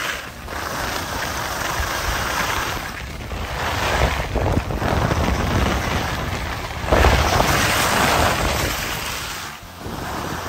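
Wind buffeting the microphone: a loud rushing noise with a low rumble. It swells about four and seven seconds in and dips briefly just before the end.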